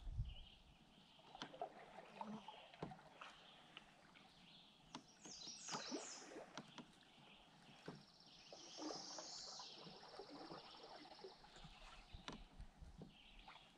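Quiet canoe paddling on calm water: faint splashes and a few light knocks from the paddle. Songbirds call in the background, with a quick run of falling chirps about five seconds in and a high trill a couple of seconds later.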